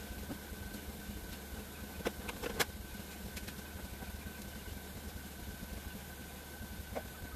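A steady low mechanical hum with a faint steady whine above it, and a few sharp clicks a little over two seconds in.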